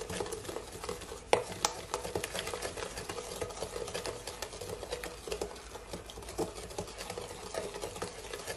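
Wooden spoon stirring egg into creamed butter and sugar in a glass bowl: continuous wet stirring with many light clicks of the spoon, one sharper click about a second in.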